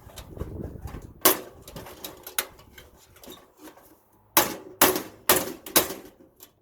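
Hammering on the metal of a toaster oven to knock a stuck part loose: two sharp strikes, then a faster run of about five blows roughly half a second apart.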